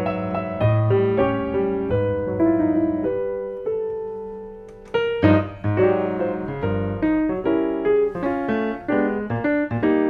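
Grand piano playing a jazz trio piece, chords and melody lines. About three and a half seconds in, a chord is left to ring and fade before the playing picks up again about five seconds in.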